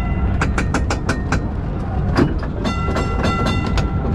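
Historic tram's warning bell rung in rapid repeated strokes, in two runs, about half a second in and again from about two-thirds of the way through, over the low rumble of the tram running on its rails.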